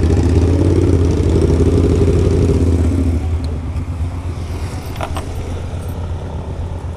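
Motorcycle engine idling with a steady low rumble, becoming quieter about three seconds in.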